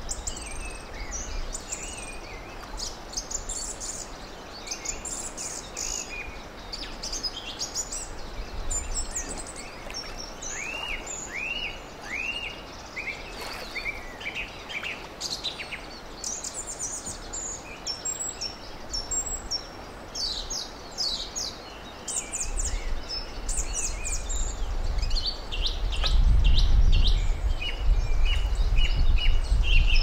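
Small songbirds chirping and singing, with a run of repeated slurred whistled notes about a third of the way in. A low rumble builds from about two-thirds of the way in and is loudest near the end.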